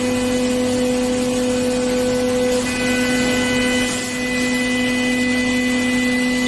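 CNC milling machine cutting a bar held in a rotary indexer under flood coolant: a steady drone of the spindle and cutter with a constant hum and higher whine. The pitch pattern shifts slightly about two and a half seconds in, with a brief dip in level near four seconds.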